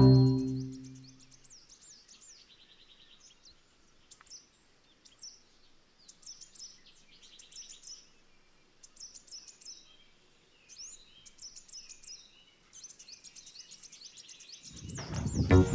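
Birds calling: faint, repeated short high chirps and quick trills every second or so. A music chord fades out at the start, and music comes back in loudly near the end.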